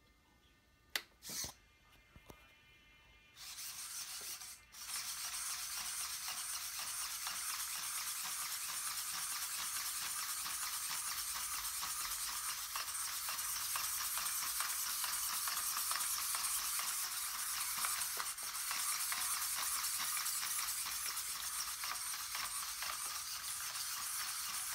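A small circular multi-legged walking robot running, its many leg actuators making a dense, steady, hiss-like chatter of fine rapid ticks as it scuffs across concrete. The chatter starts about three seconds in after a single click and cuts out briefly once before running on.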